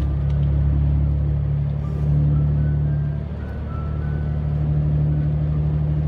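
Engine and road noise heard from inside a camper's cab while driving on a wet road: a steady low hum that dips slightly about three seconds in.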